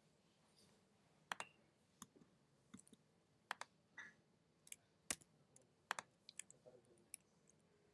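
About a dozen sharp, short clicks of computer keys and pointer buttons at uneven intervals, some in quick pairs, over faint room tone.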